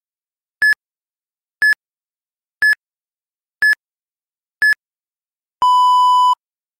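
Interval-training timer countdown: five short, high beeps one second apart, then one longer, lower beep, signalling the change to the next run or recovery interval.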